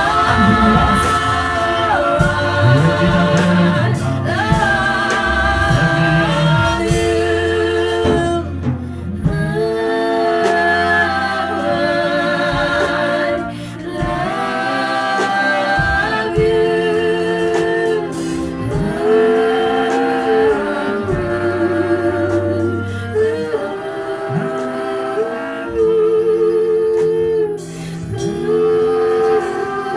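Gospel worship song: singing with long held notes and vibrato over instrumental backing with a bass line.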